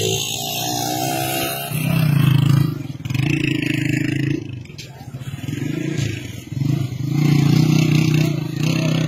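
Mudflow of mud and boulders rushing down a stony channel: a heavy rumble with scraping and clattering of rocks, coming in uneven surges, mixed with men's voices.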